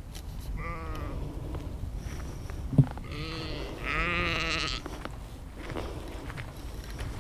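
Sheep bleating: a short wavering bleat about a second in, then a longer, louder wavering bleat from about three seconds. A single sharp thump comes just before the long bleat, and a steady low rumble runs underneath.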